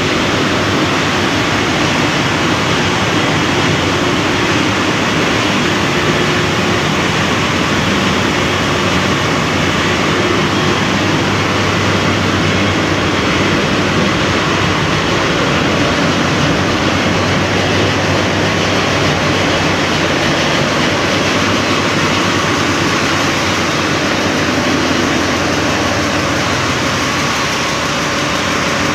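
Loud, steady din of a ship's engine-room machinery running, a dense roar with a low hum that stays level throughout.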